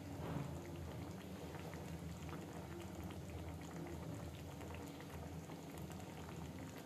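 Egg and cauliflower curry bubbling and popping as it simmers in a pan, with many small irregular pops over a steady low hum.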